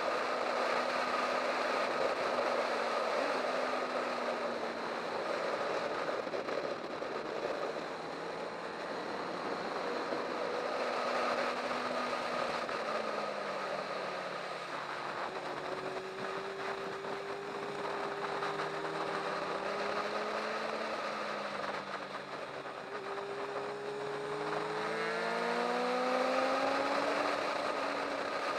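Sport motorcycle engine at speed on a race track, its note rising and falling with the throttle and climbing steadily twice in the second half, under heavy wind rush on the onboard microphone.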